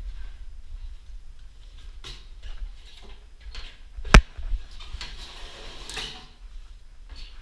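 Handling noise of a worker moving about an aluminium stepladder: scattered light clicks and rustles, one sharp click about four seconds in, then a couple of seconds of scraping.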